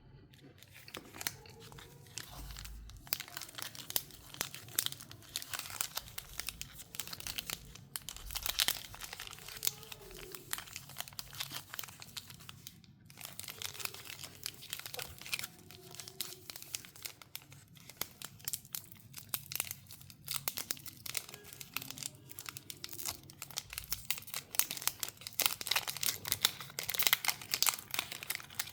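Chocolate wrappers being torn open and crinkled by hand: a dense run of crackles, with a brief break a little before halfway and busiest near the end.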